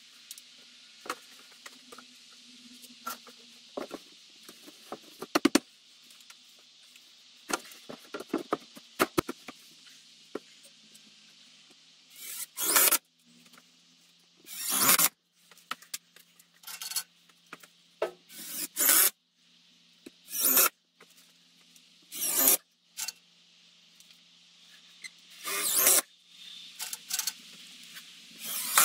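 Plastic sheeting being handled and fixed at a ceiling beam: rustling and scraping with scattered light clicks. About halfway through comes a run of short rasping bursts, each about half a second long.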